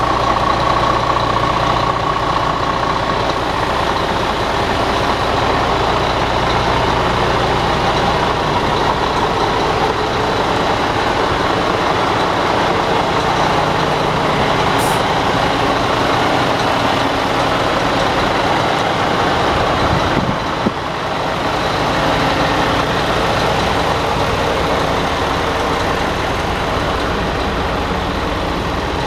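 Scania P400 tipper truck's six-cylinder diesel engine idling steadily, heard close up.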